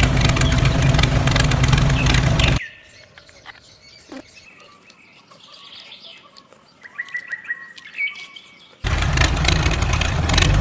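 An engine running steadily. It cuts off after about two and a half seconds and starts again near the end. In the quieter stretch between, a few light clicks of small clay bricks being handled and faint bird chirps.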